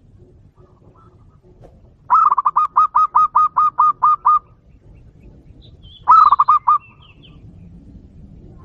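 A bird calling in a fast, even series of about eleven loud clipped notes, then a shorter burst of about six notes a couple of seconds later.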